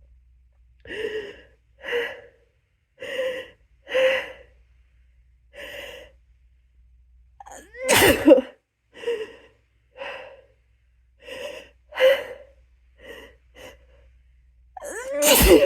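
A woman's induced sneezing: a run of short, voiced gasping breaths building up, broken by a loud, harsh sneeze about eight seconds in and another right at the end. The sneezes are triggered by a paintbrush tickling inside her nose.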